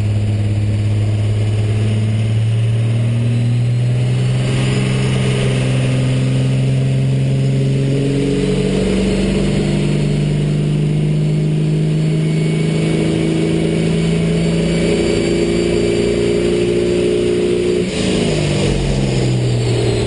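A first-generation Cummins 12-valve inline-six turbo diesel with a P-pump, heard from inside the cab as it runs under full load on a chassis dyno, its pitch climbing slowly as the revs build. Near the end it is let off and the revs fall away.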